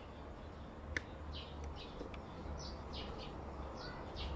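A small bird chirping over and over, quick short chirps that fall in pitch, with one sharp click about a second in, over a steady low hum.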